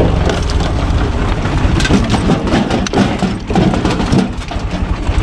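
UTB Universal 445 tractor's four-cylinder diesel running under load, driving a PTO screw-cone log splitter, with irregular crackling and knocking as the cone bores into a log. The cone is not splitting it: the engine is not turned up to full throttle.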